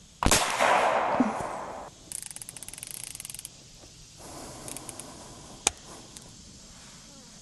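A Seneca Dragon Claw .50 caliber PCP air rifle fires one shot on high power about a quarter second in: a sharp crack, then a hiss that fades over about a second and a half. After that comes a fast rattle of clicks and a few single metallic clicks, the sharpest near the end, as the rifle's action is handled.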